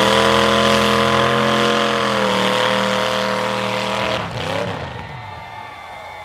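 A demolition derby car's engine revved hard and held at a steady high pitch at full throttle while pushing into another car, then dropping off about four seconds in to quieter, wavering revs.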